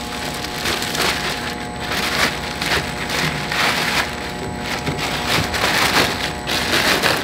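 Clear plastic protective wrap being pulled off a vacuum oven, crinkling and rustling unevenly throughout.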